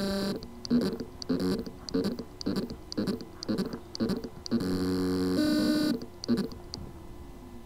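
Seagate Barracuda ST2000DM001 hard drive's spindle motor giving short pitched buzzing pulses, a little under two a second, with a longer held buzz of about a second and a half near the middle, then stopping. Loose motor contacts on the circuit board cause this: the motor can spin but cannot reach full speed.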